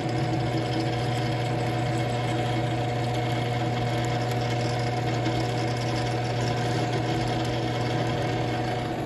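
Drill press running steadily with a constant motor hum while its twist bit cuts down through a grade 2 steel bolt.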